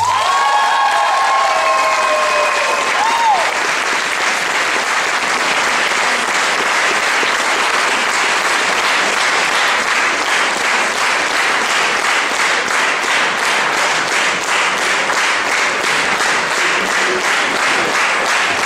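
Audience applauding steadily after the music stops, with a long high cheer over the first three seconds or so.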